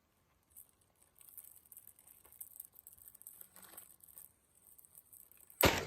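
Faint crinkling and light tapping of plastic wrapping being handled and torn off a DVD case, ending in a sudden louder sound just before the end.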